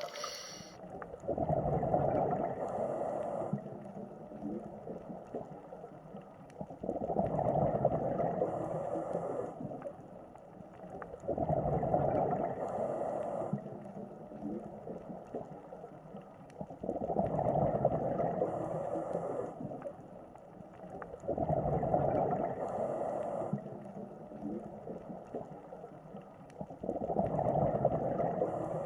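A scuba diver breathing through a regulator underwater, about one breath every five seconds. Each breath has a loud bubbling exhale lasting two to three seconds, followed by a quieter stretch.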